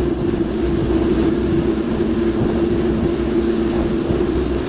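Bicycle tyres running on a wet tarmac road at a steady cycling speed, making a steady hum over a hiss, with low wind rumble on the microphone.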